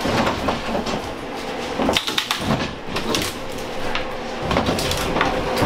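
Wooden pine frame being wrenched apart by hand: creaking and knocking of the boards, with several sharp knocks from about two seconds in.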